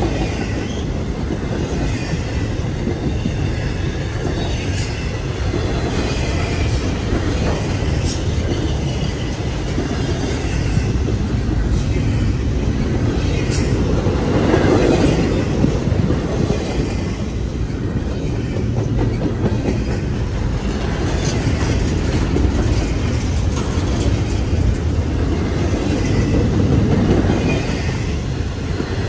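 Double-stack intermodal container train's loaded well cars rolling past at close range: a steady rumble of steel wheels on rail, with scattered sharp clicks.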